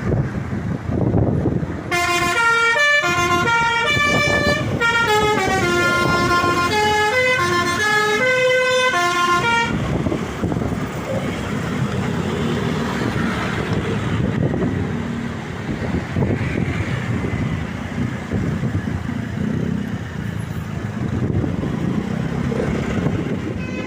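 A bus's multi-tone 'telolet' Basuri air horn plays a quick tune of short stepped notes from about two seconds in until about ten seconds in. After it stops, only the running noise of the bus and the road remains.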